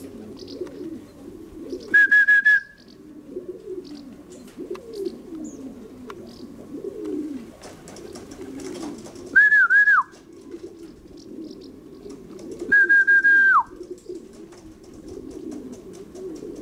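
Racing pigeons cooing steadily at the loft. Three loud whistles cut across it, about two, nine and thirteen seconds in, each a short held high note, the later two dropping in pitch at the end.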